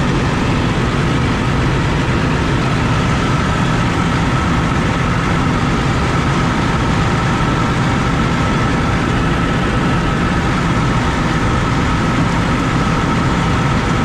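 Tour bus's rear-mounted diesel engine idling steadily, a constant low running sound with a steady whine above it.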